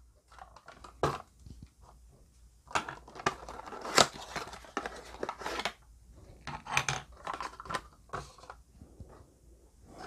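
Cardboard lighter-pouch boxes and Zippo leather belt-clip pouches handled on a tabletop: scattered rustling and scraping with a few sharp clicks, busiest from about three to six seconds in.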